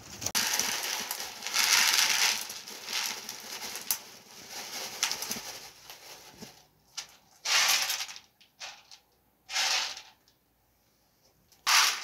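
Dried chickpeas rattling against a metal plate as they are poured and shaken: a long stretch of rattling, then three short bursts.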